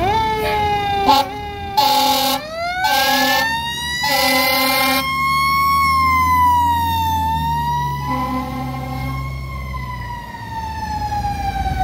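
Fire engine air horns blasting in about six short bursts over a siren that winds up, holds and then slowly winds down. A diesel engine rumbles underneath as the apparatus pulls away.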